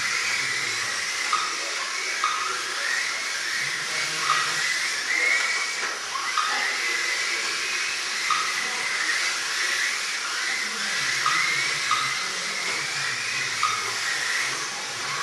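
Several small electric 1/28-scale RC cars (Kyosho Mini-Z and XMODS) lapping together, their little motors whining up and down in pitch over and over as they speed up and slow for the corners, over a steady hiss.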